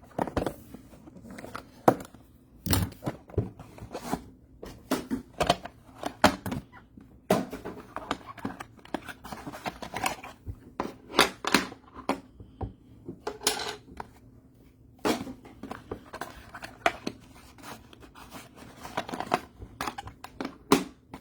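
Sealed cardboard trading-card boxes being unwrapped and handled: plastic wrap cut, torn and crinkled, with irregular scrapes and sharp clicks of cardboard.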